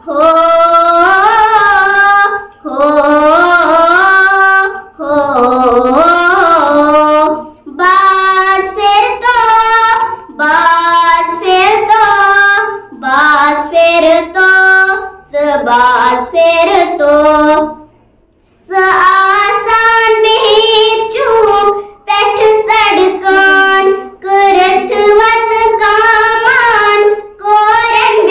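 A young girl singing a Kashmiri nazm without accompaniment, in long sung phrases with short breaks for breath and a longer pause about two-thirds of the way through.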